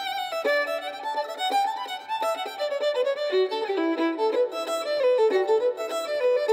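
Solo fiddle playing an Irish traditional tune: a quick, unbroken run of bowed notes.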